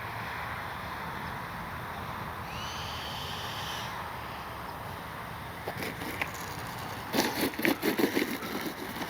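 FMS 80mm Integral RC jet touching down and rolling out, its metal landing gear and wheels clattering and knocking over the ground in a burst of rattles, loudest near the end, after a steady hiss with a short high whine about two and a half seconds in.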